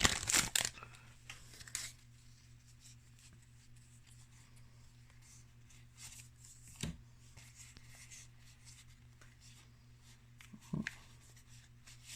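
Quiet handling of trading cards: soft slides and flicks as cards are leafed through, with a short tap about seven seconds in and another near the end. The crinkle of a foil booster-pack wrapper dies away in the first second.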